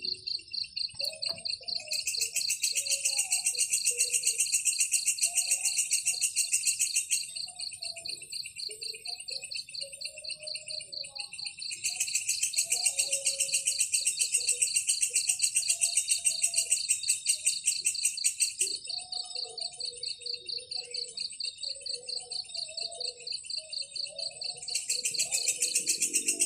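Insects trilling steadily in rapid, even pulses. A second, higher and harsher pulsed buzz comes and goes in bouts of several seconds, three times. Faint, scattered low chirps sit underneath.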